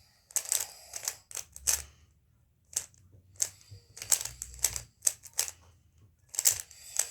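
3x3 speed cube being turned by hand mid-solve: the plastic layers clack in irregular runs of sharp clicks with brief pauses between.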